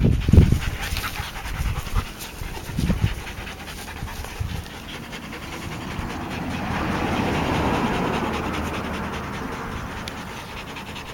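A dog panting with its mouth open. A few low thumps come in the first three seconds, and a rushing noise swells and fades in the middle.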